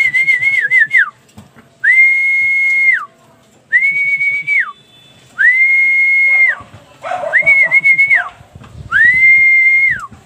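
A person whistling repeatedly to call racing pigeons into the loft: about six whistles, each rising to a high held note for about a second and dropping away. One or two have a slight warble.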